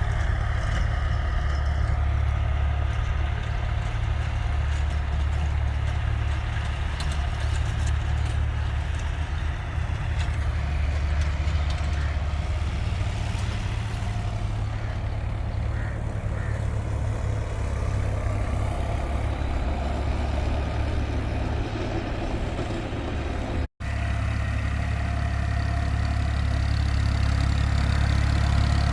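Fiat 480 tractor's three-cylinder diesel engine running steadily, with a low, even drone. The sound drops out for an instant about three-quarters of the way through, then carries on.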